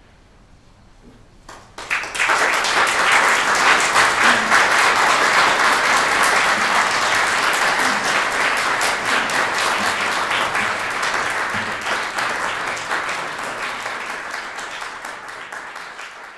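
Audience applauding. The applause breaks out suddenly about two seconds in after a brief hush, then slowly tapers off.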